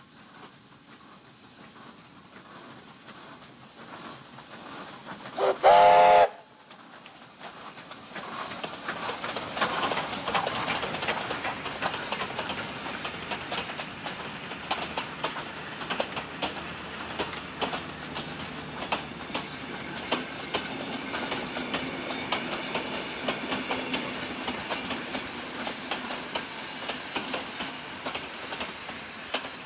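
Victorian Railways K class steam locomotive approaching, then sounding one short, loud whistle blast about six seconds in. The locomotive and its carriages then pass close by, with a steady clatter of wheels clicking over the rail joints.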